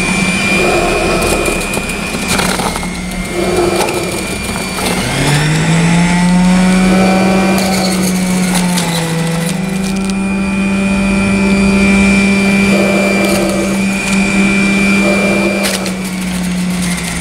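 Centrifugal juice extractor's motor running with a steady hum while hard beetroot pieces are pushed down the feed chute and shredded by the spinning cutter disc, with bursts of crunching as each load is ground. About five seconds in, the motor's pitch sags under the load and then climbs back up.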